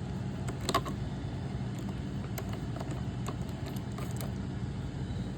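Scattered small plastic clicks and taps of hands and a screwdriver working on a robot vacuum's underside as its side brush is taken off, one sharper click about a second in, over a steady low hum.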